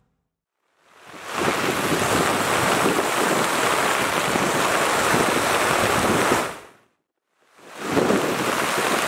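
Heavy rain pouring down, a steady rushing hiss. It fades in after a second of silence, fades out about seven seconds in, and comes back after a brief gap.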